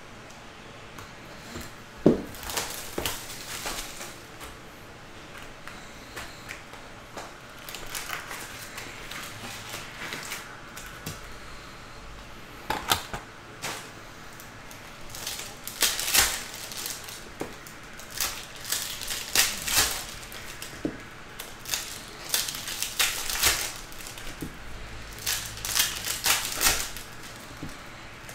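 Skybox Metal Universe hockey card packs being ripped open one after another: irregular crinkling and tearing of the wrappers and cards being handled, with a sharp snap about two seconds in.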